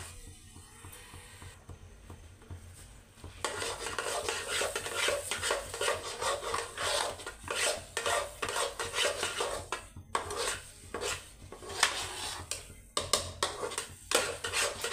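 Metal spatula stirring and scraping thick sweet potato halwa against a steel pan as it is roasted over a low flame. It is soft for the first few seconds, then turns into quick repeated scraping strokes.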